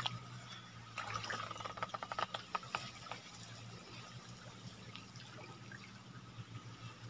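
Faint trickling and splashing of stream water around a lift net, with a quick run of small splashes and taps about one to three seconds in, over a faint steady hum.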